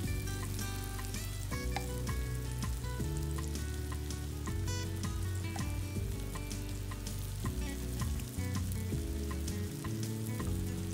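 Sliced white mushrooms sizzling and crackling in melted butter in a nonstick frying pan as they brown, stirred and turned with a wooden spatula. Light background music plays underneath.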